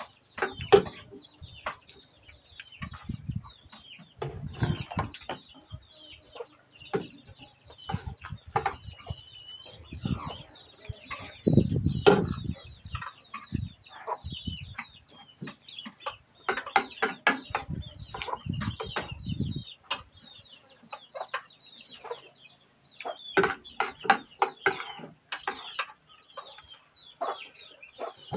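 A spoon clinking and scraping on a plate during a meal, with dull thumps of bowls and hands on a wooden table, loudest about twelve seconds in. Chickens cluck in the background.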